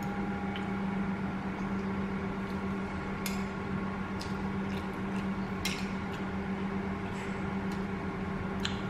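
A steady low hum from some appliance or motor, with a few sharp clinks of a metal spoon against a ceramic plate as food is scooped up.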